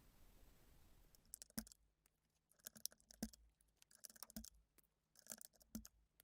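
Keys of a Redragon Draconic K530 mini mechanical keyboard being pressed, faint clicks in four short clusters starting about a second in.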